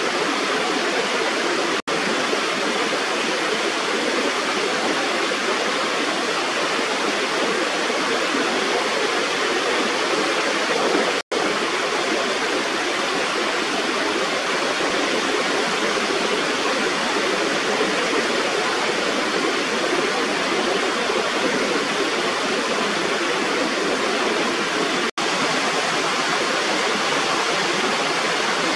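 Small waterfall pouring over a raised rubber weir on an irrigation intake: a steady rushing of falling water, broken by three momentary dropouts in the sound.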